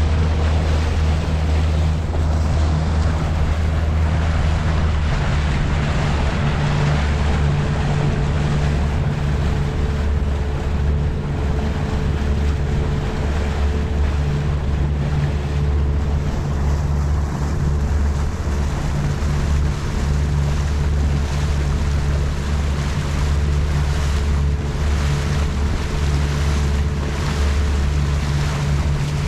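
Small fishing boat under way, its engine running steadily, over the rush of water and wind buffeting the microphone.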